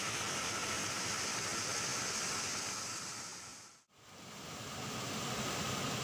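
Steady rushing of a small waterfall. The sound fades out to silence just under four seconds in, then fades back up.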